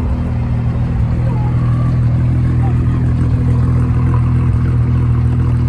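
Car engine running at a steady speed: a low, even drone that holds its pitch.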